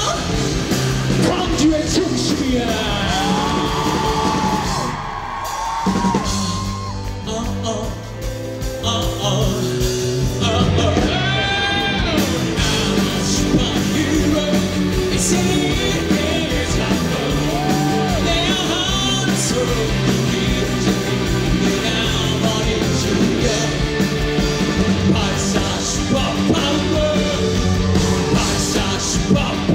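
Live rock band playing with a male lead singer, his held notes wavering with vibrato. The music drops quieter for a few seconds, from about five seconds in, then builds back up.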